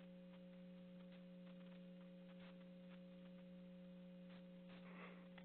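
Near silence on an open conference-call line: a faint, steady, low electrical hum with overtones, and a few faint clicks.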